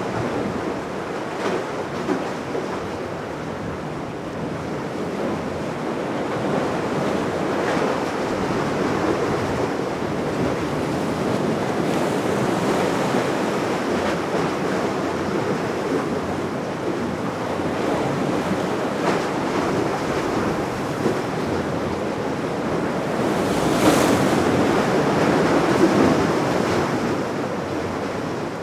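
Waves washing and wind buffeting the microphone, a steady rushing that swells louder near the end.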